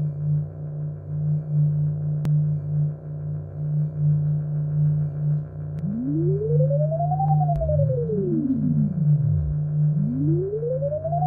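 Electronic soundtrack: a steady, gently pulsing low drone, joined about halfway through by pure tones that sweep up and back down in arcs. Two arcs overlap, and a third begins rising near the end.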